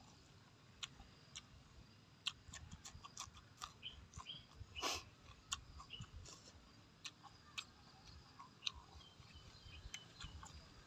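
Faint chewing and mouth smacks: irregular soft clicks as food is chewed with the mouth open.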